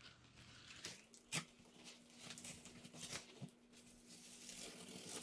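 Faint scratching of fingernails picking at packing tape on a cardboard box, with a couple of sharper clicks.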